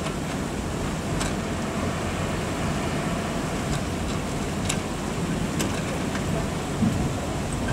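Steady low rumble of the crane truck's and mini excavator's engines running, with a few faint ticks over it.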